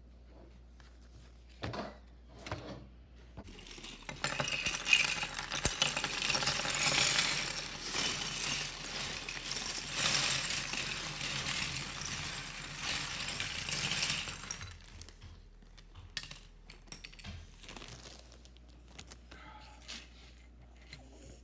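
Loose Lego pieces clattering against each other and the table in a dense, continuous rattle of small plastic clicks for about ten seconds, with a few separate clicks before and after.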